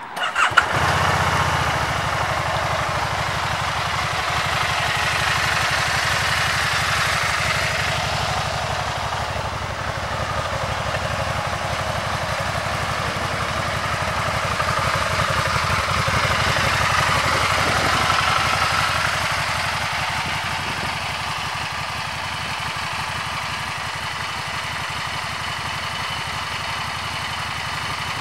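2011 Can-Am Spyder RT's Rotax V-twin engine starting up just after the start, flaring briefly, then settling into a steady idle.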